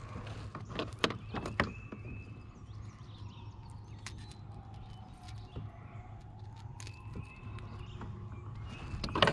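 Light knocks and clicks of handling in a plastic fishing kayak: a cluster about a second in and a sharper knock near the end, over a steady low hum.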